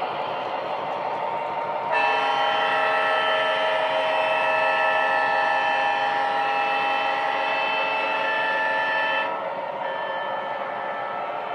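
Sound-system diesel air horn of an MTH Proto-Sound 3.0 O-gauge F7 model train, one long blast of about seven seconds sounding a chord of several tones, starting about two seconds in and cutting off sharply. Under it the train's steady running noise of wheels on the track and simulated diesel engine.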